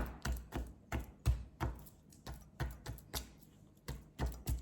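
A fork jabbed again and again through a rack of pork baby back ribs between the bones, each stab ending in a sharp tap, about three a second and unevenly spaced. The stabs push the dry rub into the meat.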